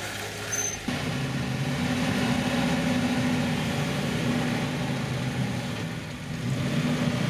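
Jeep Wrangler engine pulling at low revs under light throttle while crawling slowly over rocks. The engine note comes up about a second in and then holds steady.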